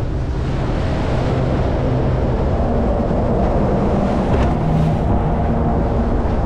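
Motorboat engine running steadily under way, with wind and water noise rushing over it.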